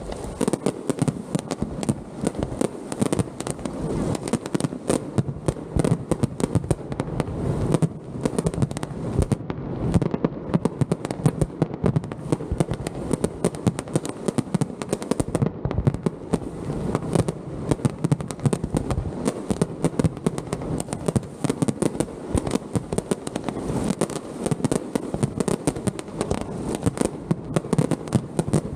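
Fireworks display by Pirotecnia Vulcano: a rapid, unbroken run of bangs and crackles.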